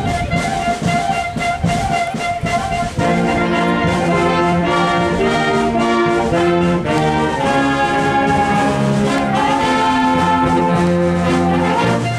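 Outdoor concert band of brass and woodwinds playing a piece in held chords, with lower parts coming in and the sound filling out about three seconds in.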